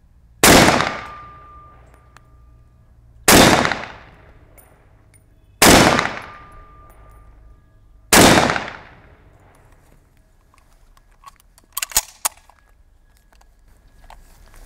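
Four shots from a Zastava M59/66 semi-automatic rifle in 7.62×39 mm, fired about two and a half seconds apart, each trailing off in an echo. A few sharp clicks follow about three seconds after the last shot.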